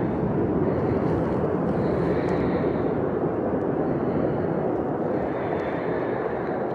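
Steady rushing noise of falling rain.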